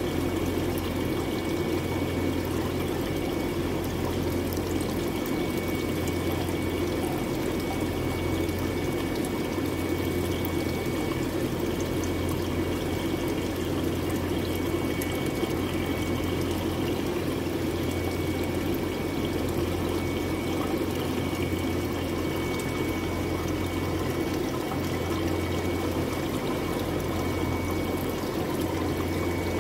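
Water running steadily into a fish holding tank, with a constant low hum beneath it.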